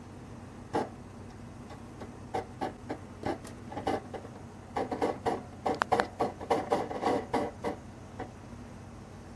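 MSR DragonFly stove burning off the gasoline left in its fuel hose: a run of irregular pops and clicks, thickest about five to seven and a half seconds in, that stops shortly after eight seconds, over a low steady hum.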